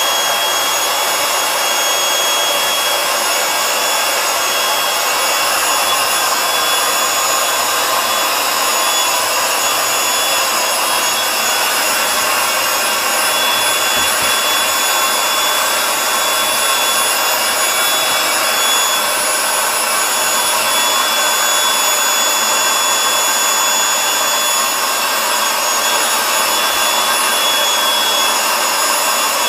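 Handheld electric air pump running steadily, blowing air into the valve of a vinyl inflatable animal chair as its head fills. A constant whirring rush with a thin high whine over it.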